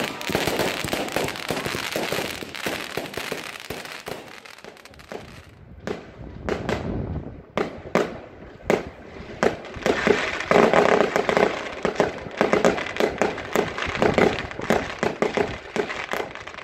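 Fireworks display: aerial shells bursting with dense rapid crackling, thinning to separate sharp bangs in the middle, then a dense volley of crackles and bangs again.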